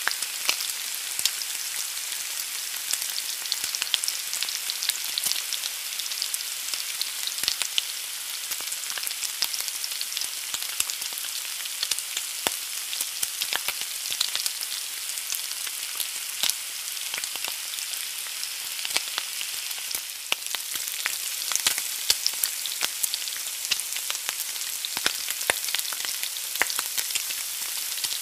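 An egg frying in a pan: a steady sizzling hiss with frequent sharp crackles and pops.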